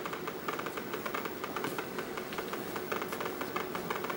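A speaker driven by a passive chaotic array of NE-2 neon bulbs, capacitors and resistors, clicking rapidly and irregularly. Each click is one neon bulb firing and pulling the voltage down.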